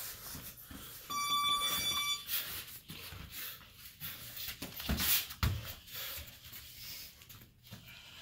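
Gym round timer's electronic buzzer sounding one steady tone for about a second, signalling the start of a sparring round, followed about halfway through by two sharp thumps of strikes landing.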